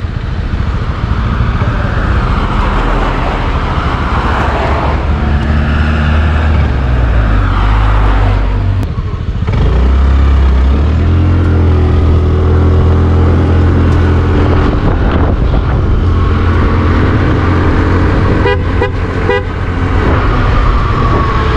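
Motorcycle engine running under the rider, rolling slowly at first, then pulling away about ten seconds in and running louder and steadier. A few quick horn beeps sound near the end.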